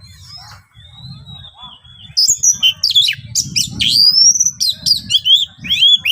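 Oriental magpie-robin (kacer) singing a varied song of whistles and fast sweeping notes. It is soft at first, then loud and busy from about two seconds in, over a low background rumble.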